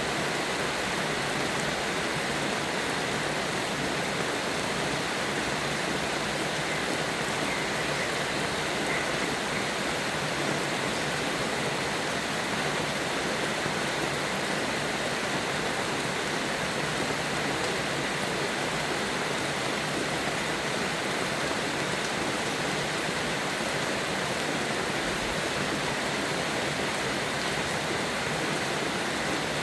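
Steady, even rain hiss with no thunder claps.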